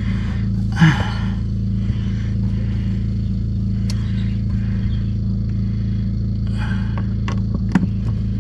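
Steady low mechanical hum from a running machine, with a few light clicks and taps from handling parts and screws.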